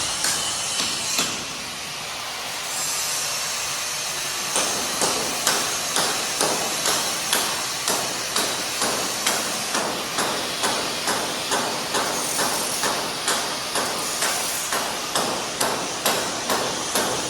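Hammer blows, struck steadily at about two a second with a slight ringing, over a steady hiss of site noise; a few blows open it, then a pause of about three seconds before the steady run starts.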